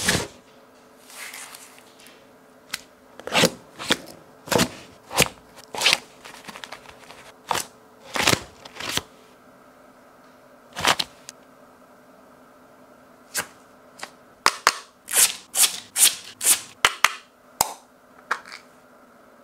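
Handling of coin packaging: short scrapes and clicks as a card sleeve and a clear acrylic coin holder are slid and moved about, irregularly spaced, with a quick run of them near the end.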